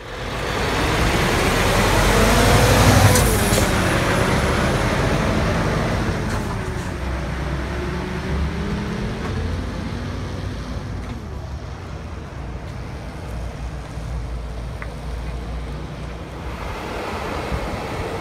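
Scania S730 heavy-haulage tractor with its 730 hp V8 diesel pulling a loaded multi-axle low-loader of about 105 tonnes past close by: engine, tyres and trailer running together, loudest about three seconds in, with a falling pitch as it passes, then a steadier, somewhat quieter run.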